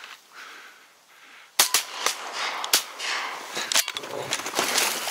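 A shotgun shot about a second and a half in, followed by a few quieter sharp knocks and rustling.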